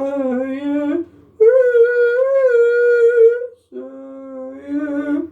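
A voice-like sound holding long, slightly wavering notes: a low note, a gap, a longer note about an octave higher, then the low note again.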